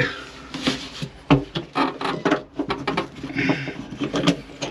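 Irregular knocks, bumps and scrapes of someone moving about and handling things inside a sailing yacht's emptied stern lazarette locker.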